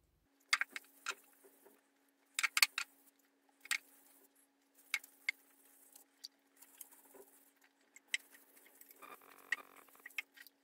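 Cloth wiping a finish onto a turned, dyed wooden vase: scattered sharp clicks and crinkles of the cloth, then steady rubbing in the last second or so, over a faint steady hum.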